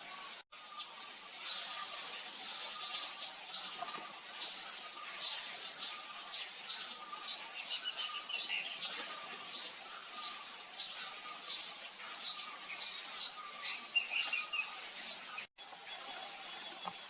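Javan fulvetta calling: a long run of short, high, buzzy chirps, about two a second, after a longer first note. A fainter, lower note repeats underneath.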